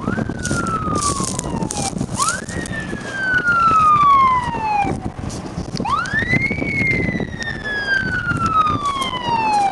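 Fire engine siren wailing three times, each wail rising quickly and then falling slowly, the last one the highest and longest.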